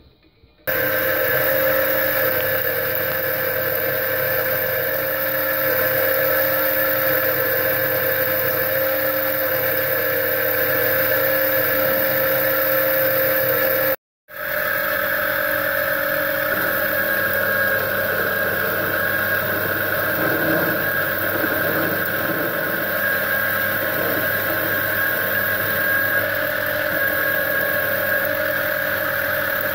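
Metal lathe running, its chuck spinning a metal workpiece, with a steady motor and gear whine. The sound drops out for a moment about halfway through, then carries on unchanged.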